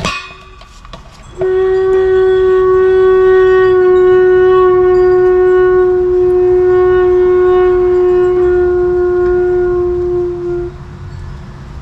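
A loud, steady, horn-like whistling tone held for about nine seconds, starting and cutting off abruptly, after a brief clatter at the start.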